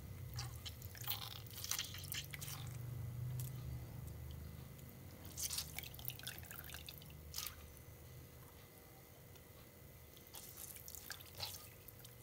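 Soft, irregular drips, squishes and small splashes as soaked lentil vadas are squeezed by hand and water runs off them back into the bowl. The sounds come in three loose clusters, faint throughout.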